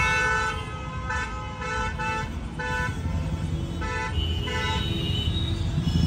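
Car horns honking in a run of short toots, one after another, over the low hum of traffic.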